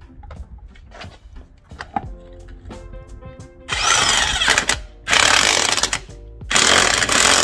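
Cordless impact wrench running lug nuts onto a car wheel in three bursts of about a second each, tightening the wheel back on. Background music plays underneath.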